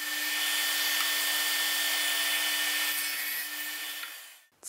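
Power saw cutting through wood, a steady even noise with a low hum under it, dying away just after four seconds in.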